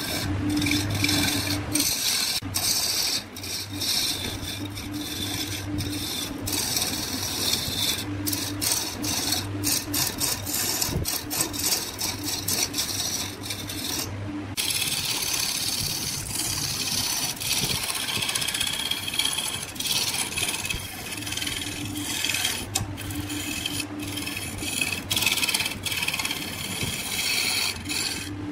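Wood lathe running while a hand-held turning tool cuts into a large spinning wood blank: a steady scraping of steel on wood over the low hum of the lathe. The scraping breaks off briefly about halfway through.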